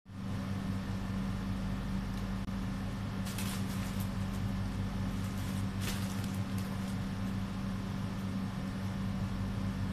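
A steady low electrical or machine hum, with two brief rustling noises about three and a half and six seconds in.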